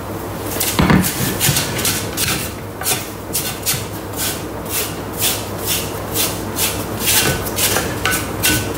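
Thermomix spatula scraping down the inside of the stainless steel mixing bowl in quick repeated strokes, about two or three a second. There is a knock about a second in.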